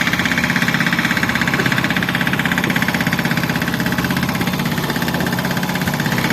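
Boat engine running steadily and loudly, with a fast, even chugging beat.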